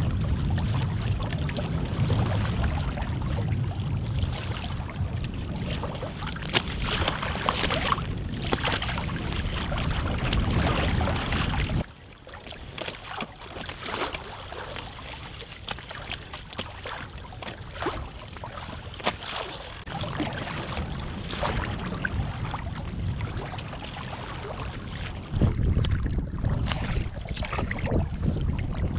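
Wind rumbling on the microphone over waves splashing and lapping against a folding canoe's hull as it is paddled into a headwind. The wind rumble cuts out suddenly about twelve seconds in, leaving quieter lapping and splashes, and comes back near the end.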